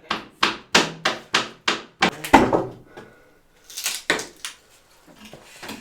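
Hammer blows on a wall during demolition: a fast, even run of sharp strikes, about three a second, then a heavier, deeper thud a little over two seconds in, followed by a few scattered knocks.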